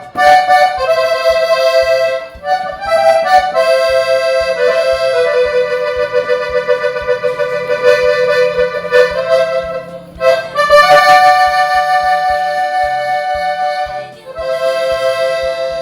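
Accordion playing a slow melody of held notes and chords, worked through with bellows ornaments: opening and circling the bellows to swell and shape the sound at the ends of phrases. The playing breaks off briefly about ten seconds in and again near fourteen seconds.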